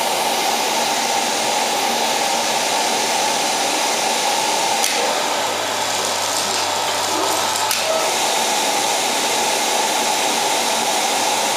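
Giersch pellet burner running at full power: a steady rushing noise from its combustion fan and flame. A couple of faint clicks and a brief low hum come through midway.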